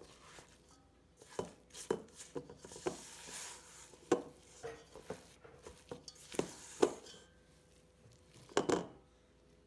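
A utensil stirring oats and raisins into thick cookie dough in a mixing bowl, knocking and scraping against the bowl at an irregular pace.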